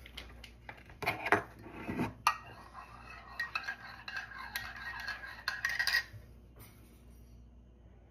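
Metal spoon stirring coffee in a ceramic mug, clinking rapidly against the sides, with a few separate taps in the first two seconds; the clinking stops about six seconds in.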